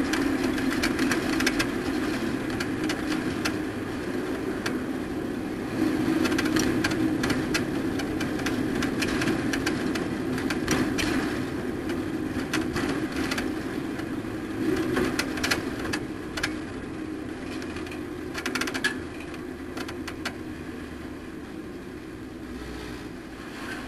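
Race truck engine running at a fairly steady pitch, with scattered clicks and rattles over it.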